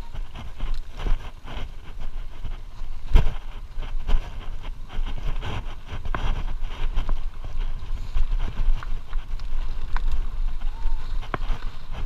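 Trek mountain bike rolling fast over a rough dirt trail: a steady low rumble of tyres on dirt, with frequent rattles and knocks from the bike over bumps and one sharp, loud knock about three seconds in.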